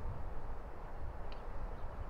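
Steady outdoor background rumble and hiss, with a brief faint high bird chirp about a second in.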